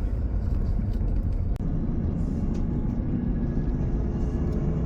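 Heavy engines running, a steady low rumble, with a faint engine tone rising near the end.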